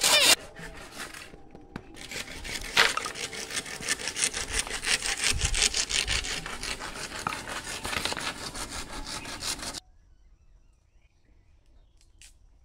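Hand saw cutting through a green bamboo pole in quick, regular back-and-forth strokes, stopping abruptly about ten seconds in. After that it is very quiet, with a few faint clicks.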